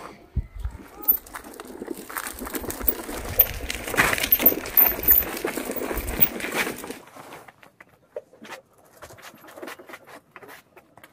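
Camera handling noise as the camera is carried and set down: rustling, bumps and clicks with a low rumble for the first several seconds. After that come a few faint scattered knocks and clicks.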